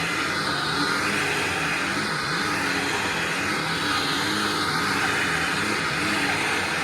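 1999 Hoover Ultra SP WindTunnel upright vacuum cleaner running steadily, motor and airflow noise with a faint low hum. Its sound wavers in a slow repeating pattern about every second and a half.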